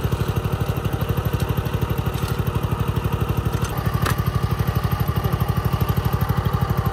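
Walk-behind cultivator engine idling with an even, rapid chugging pulse. A single light click about four seconds in.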